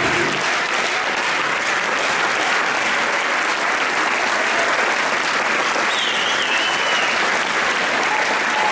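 Theatre audience applauding steadily at a curtain call, a dense, even clapping from a full hall.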